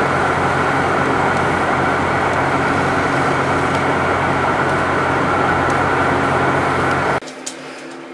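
Steady road and engine noise of a car driving on a snowy road, heard from inside the cabin. About seven seconds in it cuts off abruptly to a much quieter, steady engine hum.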